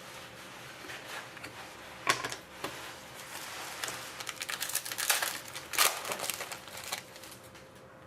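Plastic wrapper of a hockey trading-card pack crinkling and tearing as it is opened by hand, with irregular sharp crackles, the loudest about two seconds in and near six seconds.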